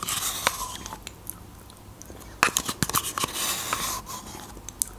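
Close-miked eating sounds of someone eating yogurt from a spoon: wet mouth noises and lip smacks, with scattered sharp clicks.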